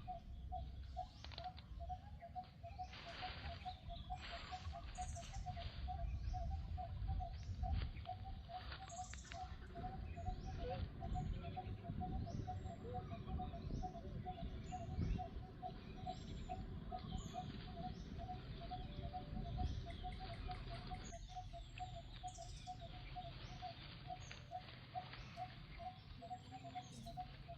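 Birds chirping in short high calls over a steady, evenly repeated note that keeps a fast, even beat throughout, with a low rumble underneath.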